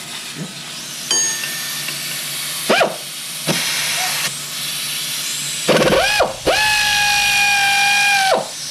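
Pneumatic air ratchet run in short bursts, each whine rising and falling in pitch, then held steady for about two seconds near the end, over a steady hiss.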